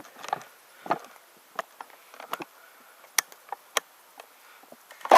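Footsteps on the forest floor: irregular sharp snaps and crunches of twigs and dry leaves, with a louder crunch near the end.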